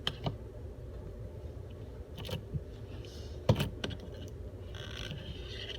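A few scattered sharp clicks and taps from an object being handled up close for ASMR, the loudest about halfway through, with a short rustle near the end, over a steady low background hum.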